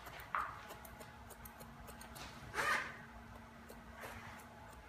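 Hair-cutting scissors snipping scissor-over-comb, a quick run of light, quiet ticks as the blades open and close along the comb. Three short swishy rustles break in, the loudest a little past halfway.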